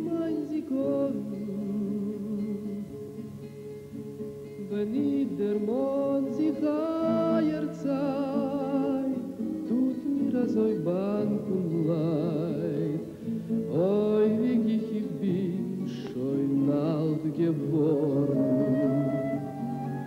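A man singing a slow Yiddish song with a strong vibrato, over sustained instrumental accompaniment.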